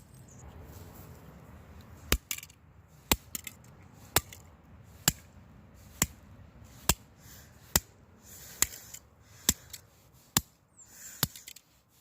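A toy car being struck over and over: about eleven sharp blows, roughly one a second, starting about two seconds in.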